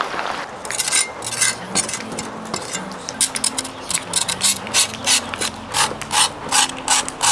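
Quick repeated scraping strokes, speeding up to about three a second partway through, over background music.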